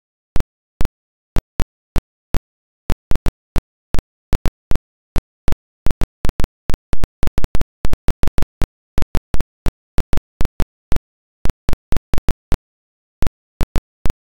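Irregular sharp clicks, several a second at uneven spacing, with dead silence between them.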